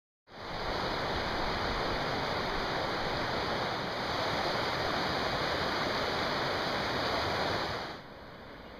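Mountain river rushing steadily over its stony bed, dropping to a quieter level near the end.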